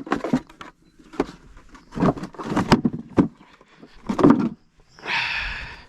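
Irregular knocks, clatters and scrapes of objects being handled, with a longer hissing scrape near the end.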